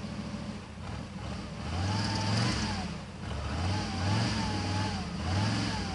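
1984 Mercury Marquis engine idling, then revved several times about a second and a half in and after, the pitch rising and falling with each blip of the throttle. The revs keep it from flooding and stalling at idle, which the owner puts down to a carburetor badly in need of a rebuild.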